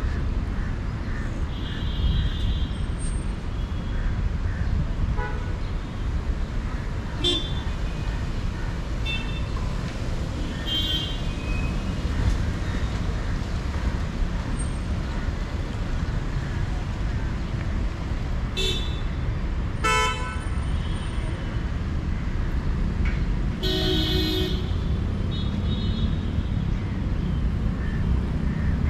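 City road traffic: a steady low rumble of passing vehicles, with car horns honking now and then, about seven short toots, the longest lasting about a second a little past three quarters of the way through.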